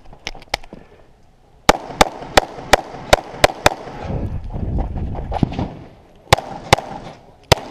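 Pistol shots fired in quick strings during a timed stage. First come about seven shots roughly a third of a second apart. After a pause come three more.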